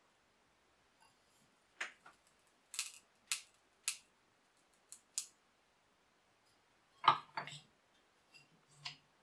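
Small aluminium pieces clicking and scraping against the metal jaws of a bench vise as they are set in place. A louder metal knock comes about seven seconds in, followed by a few smaller knocks.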